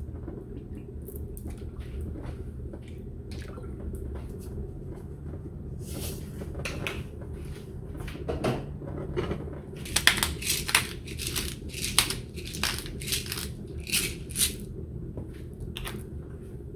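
Kitchen work sounds: utensils and cookware clicking, knocking and scraping, busier and louder in the second half, over a steady low hum.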